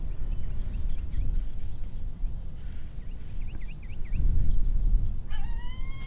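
A steady low rumble on the microphone, with scattered short high chirps, then near the end a single drawn-out canine whine or howl, rising slightly and then held.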